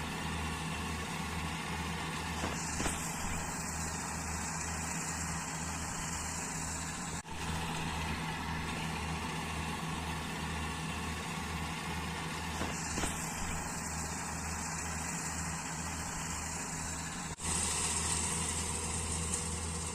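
A combine harvester's diesel engine running steadily with a low, pulsing hum, over a high rushing hiss that comes and goes. The sound breaks off sharply for an instant twice, about seven and seventeen seconds in.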